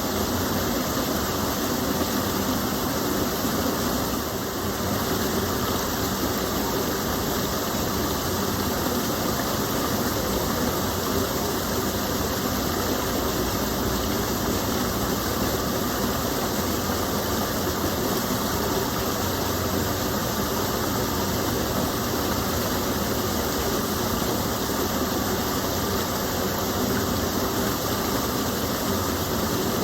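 Small waterfall of a gentle stream, water pouring and splashing in a steady, unbroken rush.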